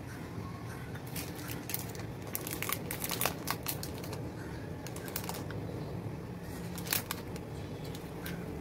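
Crinkling and crackling of a Cadbury Dairy Milk chocolate bar's wrapper as it is torn open and handled, in a run of crackles for a few seconds, then a couple of single crackles near the end.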